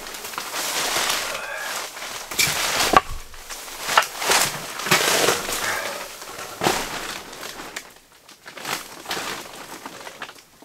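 Rustling and shuffling with a few sharp knocks and clicks, from a person handling split firewood and moving around a wood stove.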